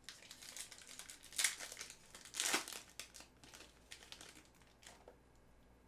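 Foil trading-card pack wrapper crinkling as it is torn and peeled open, in irregular crackles that are loudest about one and a half and two and a half seconds in and die away after about four seconds.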